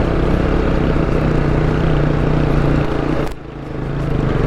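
BMW G310GS's single-cylinder engine running at low speed under load on a rough rocky track; the sound dips sharply for a moment about three seconds in and then builds again.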